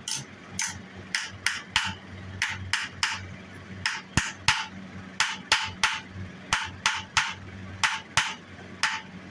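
Hammer striking a sterling silver piece to shape it for a buckle: sharp metallic blows at an irregular pace, about two a second and often in quick pairs.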